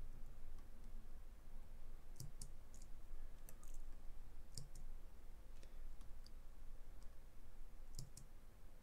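Computer mouse clicking: about a dozen short sharp clicks at irregular intervals, some in quick pairs, over a faint low hum.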